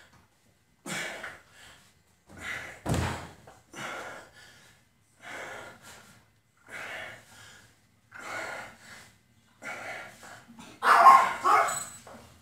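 A man breathing hard through a set of dumbbell hammer curls, with a forceful breath about every second and a half, one per rep; the breaths grow louder near the end as he tires. A low thump comes about three seconds in.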